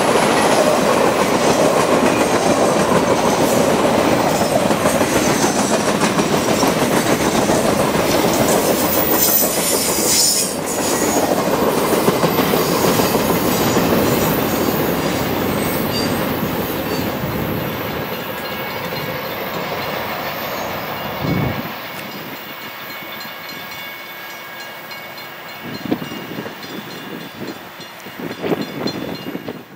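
Norfolk Southern Triple Crown RoadRailer freight train rolling past, its wheels clattering over the rails. The noise fades steadily over the second half as the last trailers move away.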